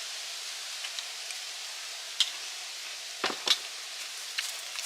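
Faint, steady sizzling hiss of food cooking over a wood fire, with a few light clicks and two knocks close together a little after three seconds in.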